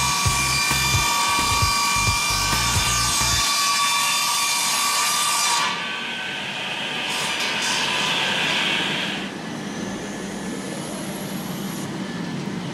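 WRAVOR type 500-S circular sawmill running, with steady tones over a hiss of sawing wood. The sound changes abruptly twice, near six and nine seconds in, each time quieter, leaving a steady machine hiss.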